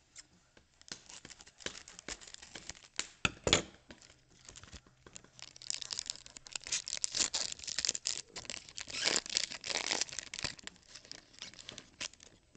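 Glossy Topps Chrome baseball cards handled and slid one behind another: scratchy rustling and small clicks of card stock, with a sharp snap about three and a half seconds in and louder rustling from about six to ten seconds in.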